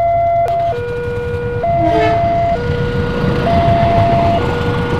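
Railway level-crossing warning alarm sounding its two-tone signal, alternating high and low about once a second. From about two seconds in, the noise of a passing passenger train swells up beneath it.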